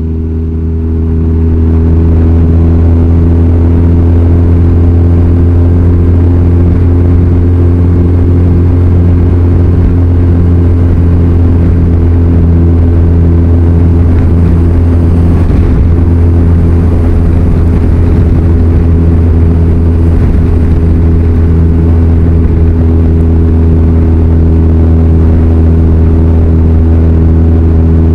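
Touring motorcycle engine running at a steady cruise, with wind and road noise, heard from the rider's seat. It grows louder over the first two seconds, then holds an unchanging pitch.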